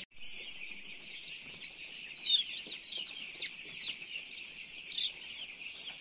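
A crowd of young chicks peeping continuously, with a few louder, sharper cheeps about two and a half seconds in and again near five seconds.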